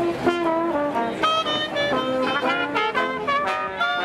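A small Dixieland-style street band plays a tune, with trumpet, trombone, tuba and clarinet sounding together over a banjo, the notes changing several times a second.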